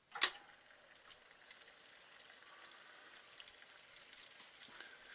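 A single sharp click, then a faint steady hiss of water running through a household reverse-osmosis filter system.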